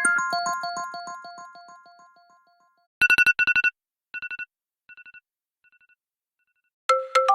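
iPhone 5s ringtones: a repeating keyboard-like melody fades out over the first few seconds. A different tone follows: a quick burst of high electronic beeps, repeated four more times, each fainter, like an echo. Near the end another melodic ringtone starts.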